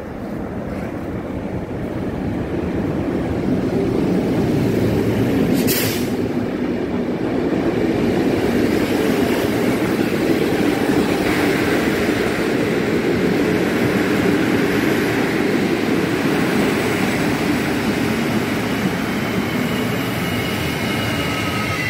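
PKP Intercity passenger train, hauled by an EP09 electric locomotive, rolling past along the platform as it arrives. It makes a steady rumble that grows louder over the first few seconds, with a brief sharp noise about six seconds in. High wheel squeal sets in near the end as the train slows for its stop.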